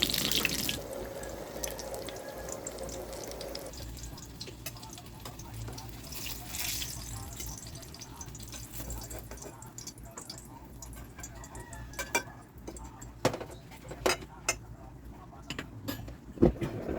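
Running water splashing, with a run of sharp clicks and knocks in the last few seconds.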